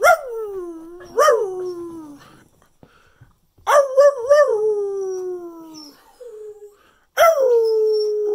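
Cocker spaniel howling: three long howls, each starting high and sliding down in pitch, the second with a wavering start and the third running on past the end.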